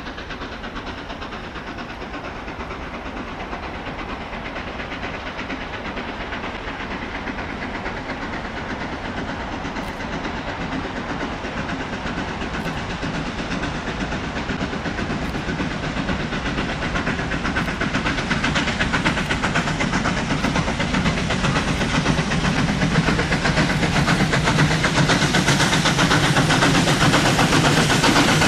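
A steady rushing, hissing noise that grows louder and louder.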